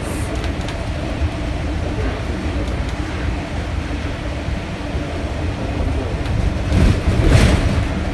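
Steady low rumble inside a moving public transit vehicle, with a brief louder rushing noise about seven seconds in.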